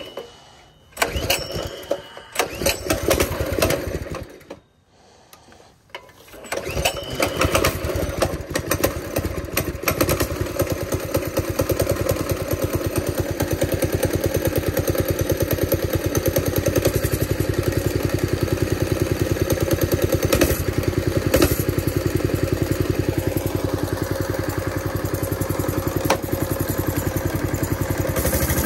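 Cold Baja Warrior minibike's small single-cylinder engine being started: a few uneven, broken bursts, a short lull, then it catches about six seconds in and keeps running steadily.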